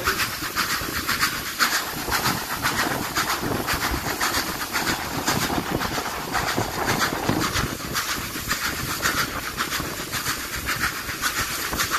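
Steam locomotive under way, its exhaust chuffing in a fast, even beat over a steady steam hiss.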